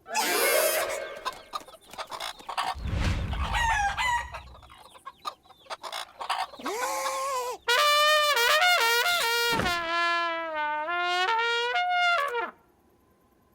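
Cartoon sound effects: a noisy flurry of chicken clucks and squawks with a low rumble, then a trumpet playing a wavering tune of held, stepping notes for about five seconds, which cuts off sharply near the end.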